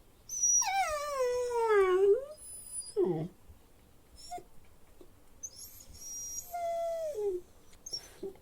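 Dog whining: a long, wavering whine that slides down in pitch and turns up again at its end, then a short, lower whimper. A second whine, held fairly level, follows and falls away at its end.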